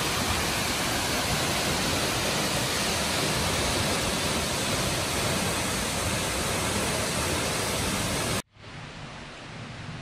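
Waterfall rushing, a loud steady noise of falling water. About eight seconds in it cuts off abruptly to a much quieter steady hiss.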